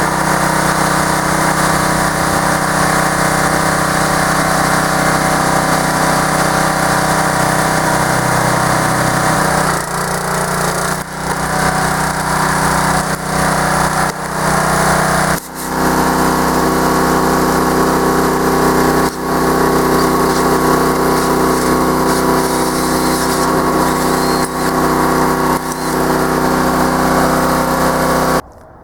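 Small gasoline engine running steadily, its note shifting about ten seconds in, with a few brief dips, then cutting off suddenly near the end.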